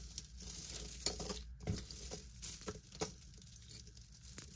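Jewelry pieces clinking and rustling as they are handled and sorted by hand: a jumble of small, irregular clicks and crinkles.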